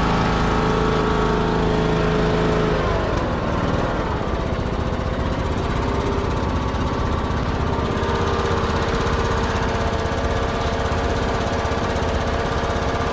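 Husqvarna lawn mower engine running steadily. Its speed drops about three seconds in and rises again about eight seconds in.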